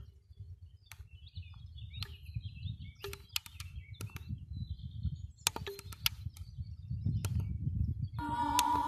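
FM radio receiver between stations in a bandscan: a rough low rumble with scattered clicks and crackles, then a station's music comes in sharply about eight seconds in.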